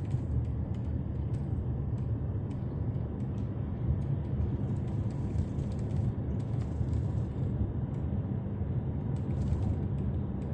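Steady low road and cabin rumble inside a Hyundai Santa Fe TM at about 35 km/h, with scattered faint clicks and a few sharper cracks near the end from the panoramic glass roof creaking, even on a smooth road.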